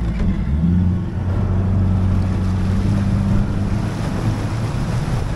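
Bass boat's outboard engine running at speed with a steady hum, over the rush of wind and water past the hull.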